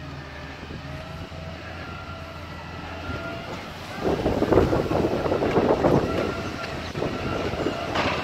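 Side-loading garbage truck running at the kerb with a faint whine. About four seconds in, a loud clattering rattle lasts for about three seconds, as a wheelie bin's contents are tipped into the hopper.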